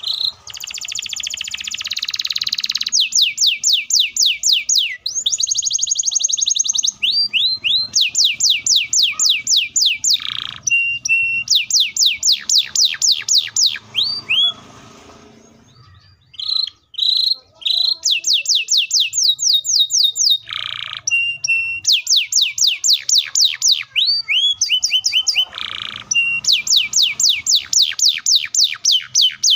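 Domestic canary singing long, fast rolls of rapidly repeated high notes, the runs broken by brief pauses and short harsh buzzy notes, opening with a rasping rattle.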